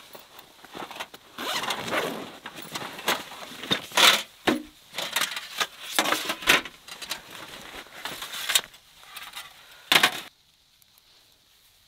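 Gloved hands unpacking a flat-packed sheet-metal wood stove: a nylon carry bag rustling and thin steel panels scraping and clanking against each other. The sharpest clank comes about ten seconds in, and then the handling sounds stop suddenly.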